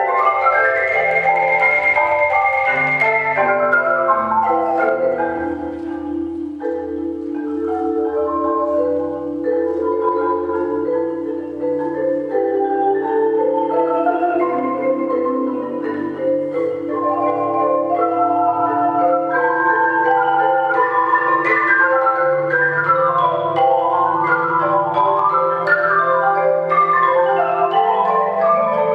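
Three marimbas played together by six mallet players in dense, interlocking patterns of quick struck notes, with a held low-middle note running underneath through most of the passage. The music eases slightly in loudness around six seconds in, then builds again.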